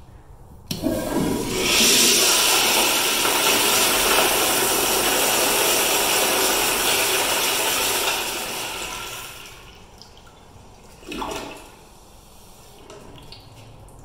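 A commercial toilet with a chrome flushometer valve flushing: a sharp start under a second in, then a loud, steady rush of water for about six seconds that tails off around nine seconds in. A brief short sound follows a couple of seconds later.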